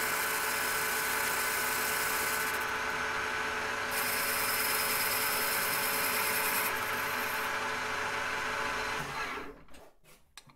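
Metal lathe running, turning the freshly relined motorcycle brake drum hub against the cutting tool with a steady machining whine. The lathe winds down and stops about nine seconds in, followed by a few faint clicks.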